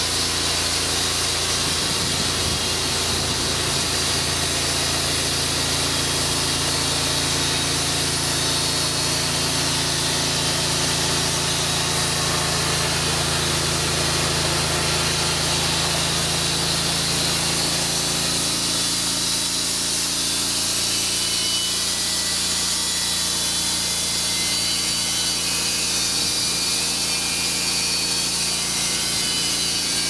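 Portable band sawmill running, its engine working steadily while the band blade saws lengthwise through a log. The low engine note changes about two-thirds of the way through.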